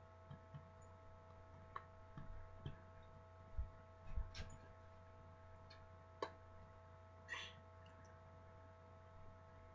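Near silence: room tone with a steady electrical hum and a few faint scattered clicks and knocks, the strongest about four seconds in.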